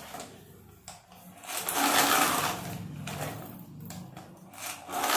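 Battery-operated toy doll's small motor and gears whirring as it moves about on the table. The whirring comes in spells, loudest about two seconds in and again near the end.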